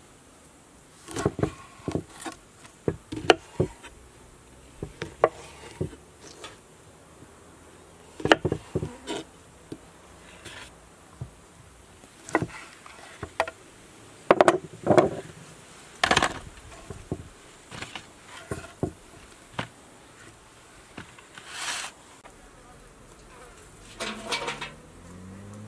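Kitchen knife cutting limes into wedges on a wooden cutting board: sharp knocks of the blade meeting the board, in uneven clusters, over a background of buzzing insects. Near the end, chickens clucking.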